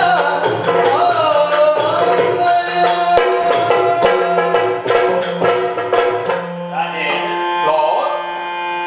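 Yakshagana music: a sung melody that glides in pitch, over frequent drum strokes and a steady held drone.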